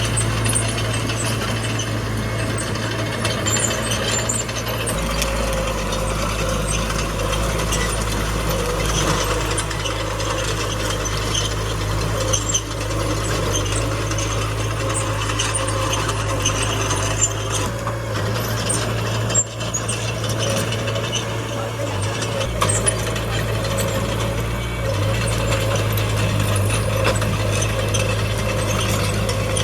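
Small crawler bulldozer working: the diesel engine runs steadily under a continuous clanking and ratcheting of the steel tracks and moving parts.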